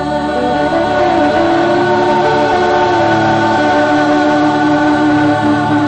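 Live amplified singing with music: two lead singers and a backing chorus holding long, steady notes together.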